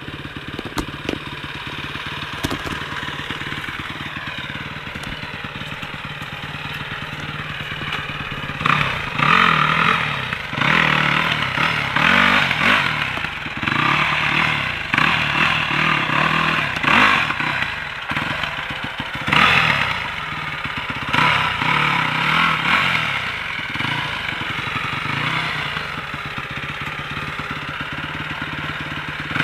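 Off-road dirt bike engine running steadily, then revved in a series of irregular throttle bursts from about eight seconds in, easing back toward a steady run near the end.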